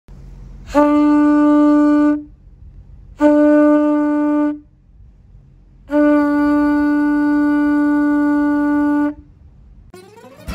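Conch shell trumpet blown three times, two short blasts and then a longer one, each a single steady note, sounded to announce the sailboat's departure. Music with a rising sweep begins near the end.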